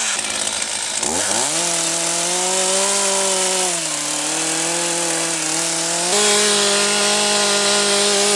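A small engine revs up sharply about a second in and then runs at high speed. Its pitch sags a little near the middle and steps up again after about six seconds.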